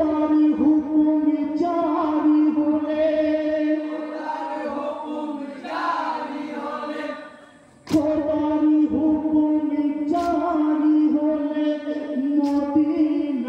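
A group of voices singing a Bengali marsiya, a lament, together in long held notes. The singing breaks off briefly about seven seconds in and comes back in sharply about a second later.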